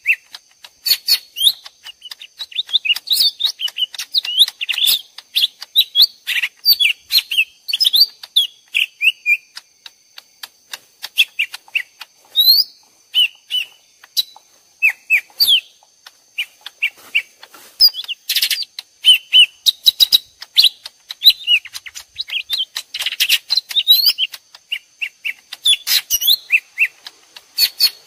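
Lesser green leafbirds (cucak ijo mini) calling back and forth in rapid, varied chirps and short whistled glides, two birds answering each other as if fighting; a lure call for trapping. The calling thins out for a couple of seconds about a third of the way in, and a faint steady high tone runs underneath.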